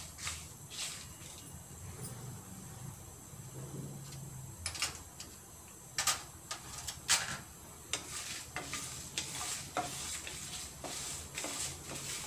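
Wooden spatula stirring and scraping whole spices and dried red chillies in a non-stick frying pan, with a light sizzle underneath and scattered sharp clicks of the spatula against the pan. The spices are being roasted until they change colour, for a masala paste.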